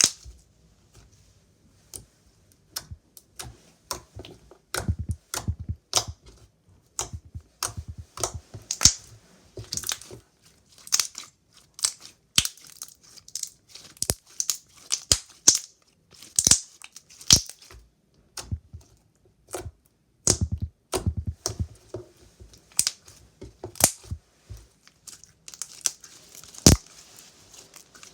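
Slime being worked by hand: an irregular string of sharp, sticky pops and crackles, with runs of soft, low squishing presses about five seconds in and again about twenty seconds in.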